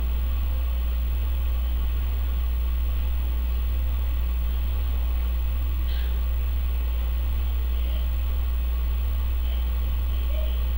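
Steady low background hum with no speech, and a faint tick about six seconds in.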